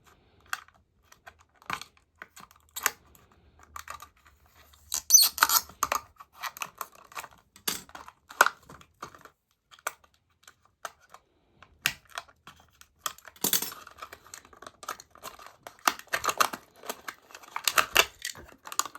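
Hot Wheels plastic blister pack being cut and pried open: irregular clicks, snips and crinkling of stiff plastic and card, with louder tearing and scraping about five seconds in, again around thirteen seconds in, and near the end.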